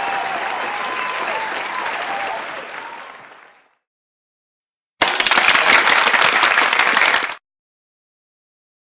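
Crowd applause fading out over about a second, then after a short silence a second, louder and brighter round of applause that lasts about two and a half seconds and cuts off suddenly.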